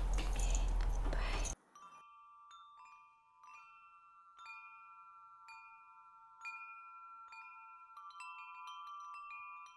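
A loud rustling noise for about a second and a half, then an abrupt cut to clear bell chimes. The chimes are struck about once a second, each tone ringing on and overlapping the next, with the strikes coming faster near the end.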